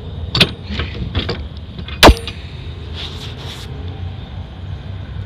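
Rear swing door of a refrigerated trailer being unlatched and opened: metal clicks from the lock-rod handle, one very loud metallic clank about two seconds in, then a brief scrape as the door swings. A steady low hum runs underneath.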